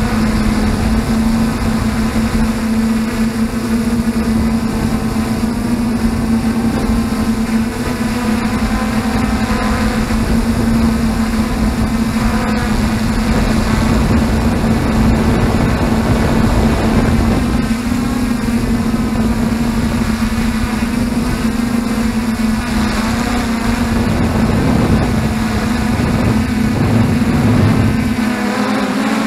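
F450 quadcopter's four electric motors and propellers humming steadily, heard close up from the camera on board, the pitch wavering a little as the throttle shifts.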